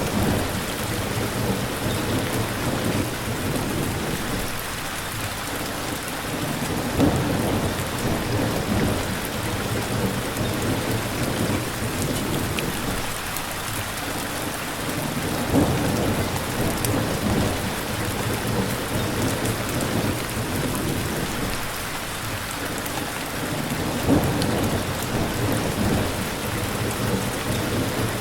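Steady rain falling, with low rumbles of thunder swelling up three times, about eight seconds apart.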